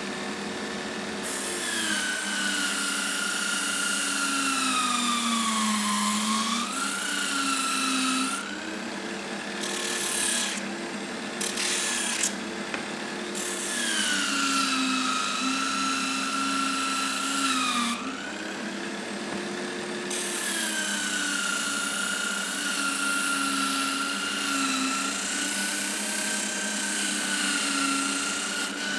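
Bench-mounted power sanding disc spinning, with the rasp of its abrasive grinding the end of a Tasmanian oak board. The motor's whine drops in pitch each time the wood is pressed against the disc and climbs back when the pressure eases, several times over.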